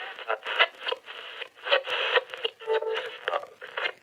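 Old radio being tuned across the dial: crackling static broken by short, thin fragments of voices and music as stations pass, with a brief tone a little before the end.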